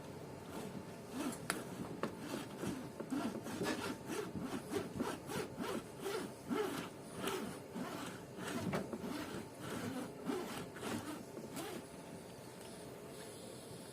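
Windscreen cutting wire being sawn back and forth through the urethane bond around a car windscreen, in irregular strokes that stop about two seconds before the end.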